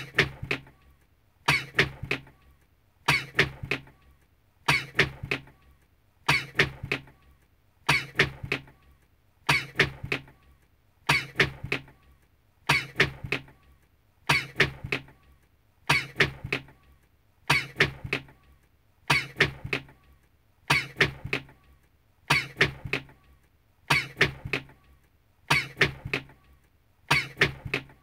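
A man's sneeze, the same short clip repeated in a loop, coming back evenly about every second and a half.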